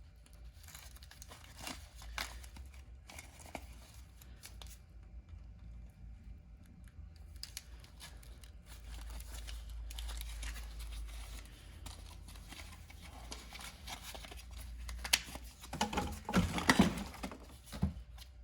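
Rustling and handling noises as small tools and their boxes or wrappers are moved about, with scattered light clicks; a louder stretch of rustling and knocking comes near the end.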